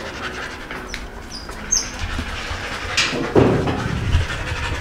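A dog panting in the summer heat, with a knock and a low thump about three seconds in.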